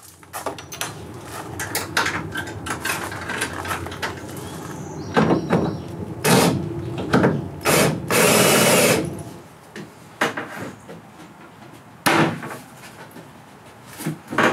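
Plywood panels of a three-panel loft bed being lifted, shifted and set down on the bed's metal frame: a run of knocks and clatter with several sharp strikes, and a longer scraping sound a little after halfway through.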